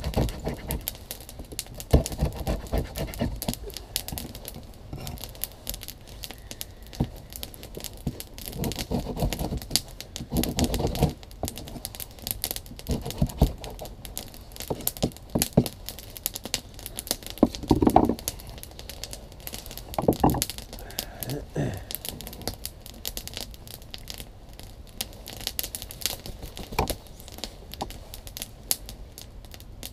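Delta Whiskey Farnhawk knife shaving feather-stick curls off a wooden stick: scraping strokes of the blade on the wood, coming in short irregular runs with pauses between.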